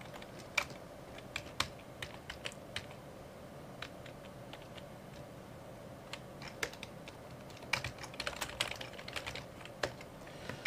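Typing on a computer keyboard: scattered keystrokes with pauses, then a quicker flurry of keys about eight seconds in.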